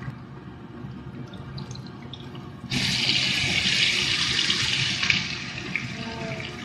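Hot oil sizzling under a frying eggplant omelette (tortang talong). A little under three seconds in, the sizzle jumps suddenly much louder as the omelette is turned over into the oil, then eases off after about two seconds.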